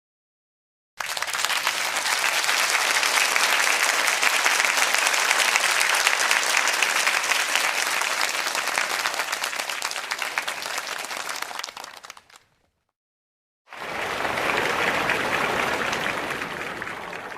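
Audience applause: a long round of many hands clapping starts abruptly about a second in and dies away around twelve seconds. After a short silence a second round of applause begins and is fading out near the end.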